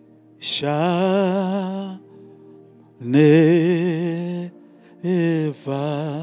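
A man singing a slow gospel song in a few long held phrases with strong vibrato, over soft sustained backing chords.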